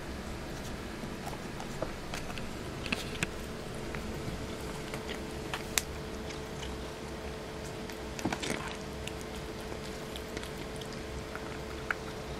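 A cat eating wet cat food from a plate, with scattered small wet clicks of chewing and lapping over a steady faint background.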